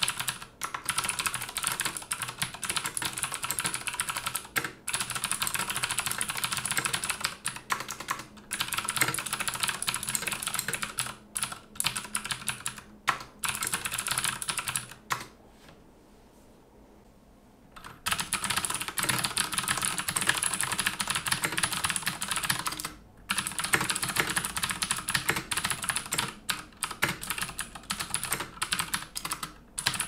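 Fast typing on a XENICS Stormchaser tenkeyless mechanical keyboard with clicky Cherry MX Blue switches: a dense, continuous run of sharp key clicks. It stops for about two and a half seconds around the middle, then resumes just as fast.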